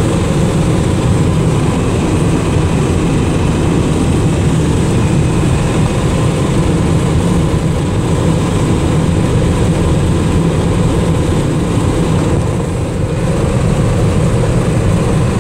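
Steady drone of a 1979 Dodge D300 pickup cruising at highway speed, heard from inside the cab: its 360 V8 with four-barrel carburettor, mixed with tyre and wind noise. A low rumble dominates, with a brief slight easing about three-quarters of the way through.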